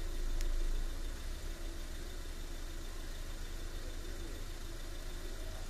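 Steady low rumble of an idling engine, with a faint steady hum above it and a small sharp click about half a second in.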